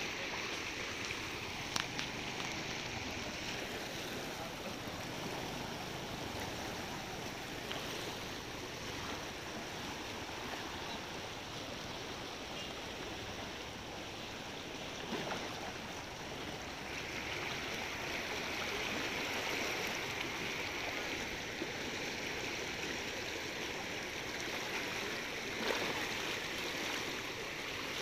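Steady rush of a river in flood, swollen brown water running fast and high.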